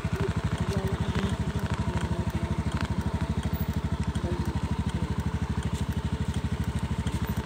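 Motorcycle engine running steadily with a fast, even low throb.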